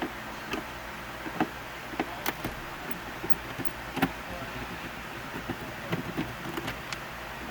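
Scattered light clicks and taps of a screwdriver and hands working on the plastic center console trim, over a steady background hiss.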